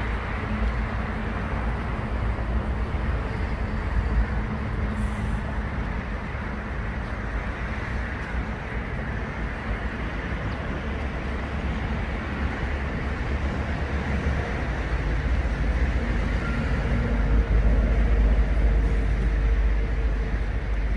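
Steady outdoor background noise with a low rumble, which grows louder in the last several seconds.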